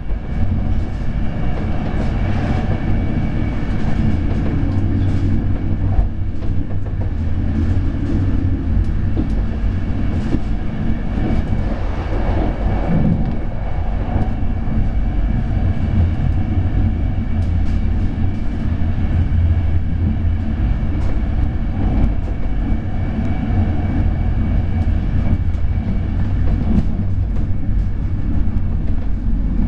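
Passenger train running at speed, heard from inside the coach: a steady low rumble of wheels on rails with scattered faint clicks.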